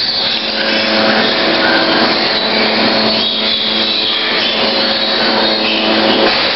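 Continuous din of a farrowing room: many piglets squealing and sows grunting together, over a steady hum.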